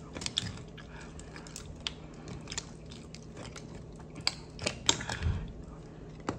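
Close-up eating of black mussels: wet chewing and mouth smacks with scattered sharp clicks of mussel shells being handled, busiest about four to five seconds in.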